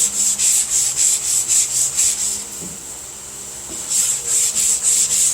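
Longboard sanding block with sandpaper worked back and forth over a car body panel in steady rasping strokes, about three a second, pausing briefly around the middle and then resuming. The strokes are block sanding out scratches in the panel's filler and primer.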